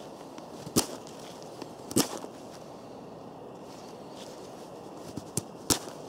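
Fixed-blade knife (Berloga First SE) carving a dry wooden stick: a few short sharp cracks as blade strokes shave off wood. The loud ones come about a second in, at two seconds and near the end.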